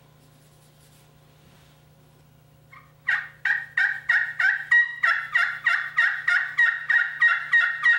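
Slate friction turkey call in a walnut pot, worked with a wooden striker, yelping: after about three seconds of quiet, a steady run of about four yelps a second, each breaking over from a high note to a lower one. The tone is fairly high-pitched with not a lot of rasp.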